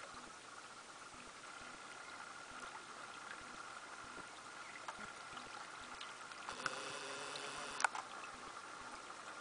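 Faint patter of many tiny splashes from a huge shoal of young saithe (sillocks) breaking the sea surface, like raindrops on water. About two-thirds through, a steady pitched sound lasts just over a second and ends in a sharp click.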